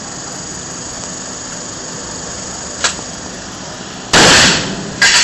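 Steady hiss, a sharp click about three seconds in, then a loud gunshot about four seconds in that rings out in the indoor range, and another shot just at the end.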